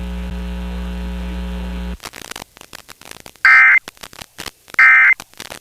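Steady mains hum with a buzz of harmonics, cut off abruptly about two seconds in. Then crackling radio static with two short data bursts of warbling tones a little over a second apart: the Emergency Alert System end-of-message tones that close the test.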